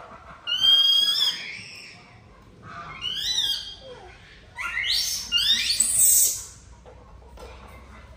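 Baby monkey screaming: four high-pitched, shrill calls that rise and fall in pitch, the last two loudest and run together.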